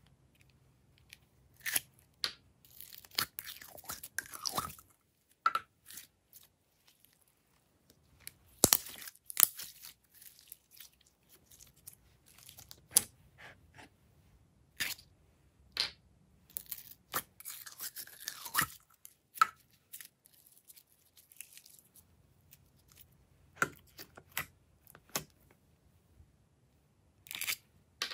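Sticky glitter slime being squeezed out of small plastic cups and handled, making irregular crackles, clicks and pops in clusters with short quiet gaps between them.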